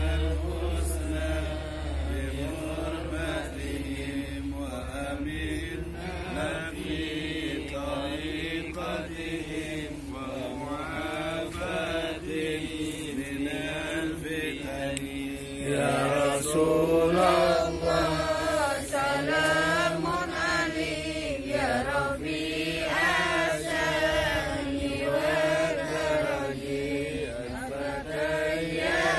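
Islamic supplication (du'a) chanted in a melodic voice with long, wavering notes, growing louder about halfway through.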